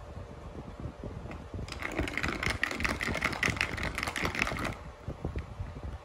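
Ice cubes rattling and clinking against a glass mason jar as an iced coffee drink is stirred with a straw: a fast run of small clicks lasting about three seconds, starting near two seconds in.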